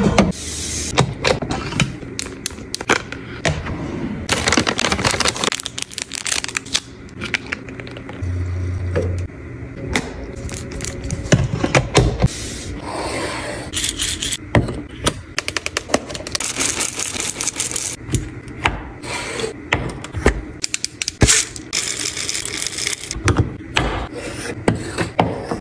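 A run of close-miked handling sounds, with many sharp clicks, taps and clinks and a few longer rustling or scraping stretches: aluminium drink cans being set into a plastic fridge door bin, then a paper towel roll and other items being put in place on a countertop.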